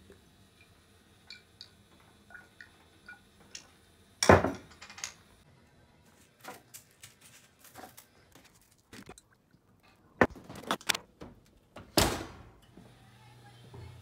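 Kitchen clatter from handling a metal baking sheet and dishes: a few light clicks, then a series of sharp knocks and bangs, the loudest about four seconds in and again near twelve seconds, each with a short ring.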